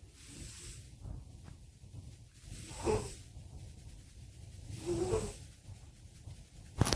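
Sleeping cats snoring, a wheezy, hissing breath about every two seconds. A brief sharp click just before the end is louder than the snores.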